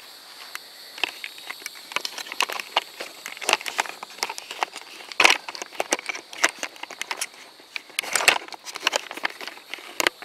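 Aluminum tent poles and nylon tent fabric being handled: irregular sharp clicks and clacks with crackly rustling, busiest in the middle and near the end.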